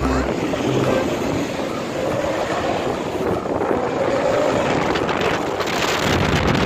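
Steady noise of city street traffic, with wind rumbling on the microphone.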